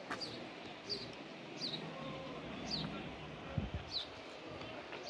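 A small songbird repeating a short, high, falling chirp about once a second, over a faint background murmur, with one brief low thump midway.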